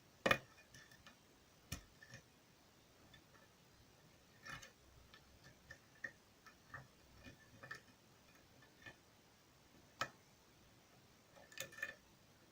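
Faint, irregular metallic clicks and ticks of a lock pick working the pins of a tensioned pin-tumbler challenge lock during single-pin picking, with a sharper click about a quarter second in and a short cluster near the end.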